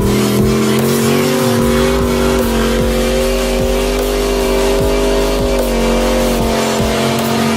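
Car engine held at steady high revs, a sustained drone that barely changes in pitch.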